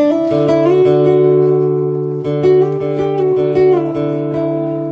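Acoustic guitar playing a song's intro: strummed chords left to ring, with a new chord struck about every one to two seconds.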